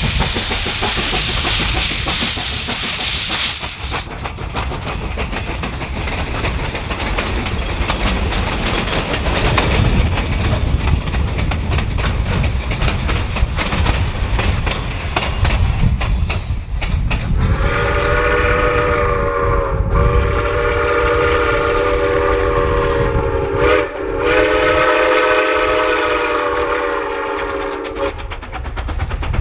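Black River & Western steam locomotive No. 60 running with a low rumble and rail clatter, under a loud hiss that cuts off suddenly about four seconds in. From about halfway, its chime whistle sounds three long blasts with brief breaks between them, stopping shortly before the end.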